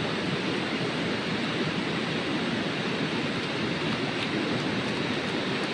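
Portable gas stove burner running under a pot of water, a steady rushing hiss of the flame as the water heats toward the boil.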